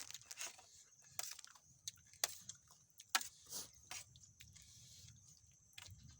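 A person eating close to the microphone: irregular wet chewing and lip-smacking clicks, with a few sharper clicks about a second, two seconds and three seconds in.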